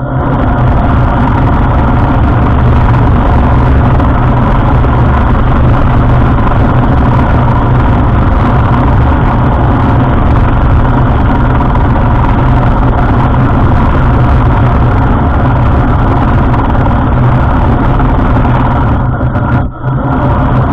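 Heng Long Tiger II radio-controlled tank driving on pavement: its metal tracks clatter over the ground along with the engine noise from its sound unit. The sound is loud and steady, with a brief dip about a second before the end.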